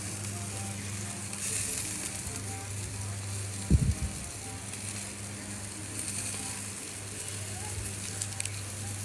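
Shrimp and chicken sizzling on a charcoal grill, a steady hiss over a low steady hum, with one loud thump about four seconds in.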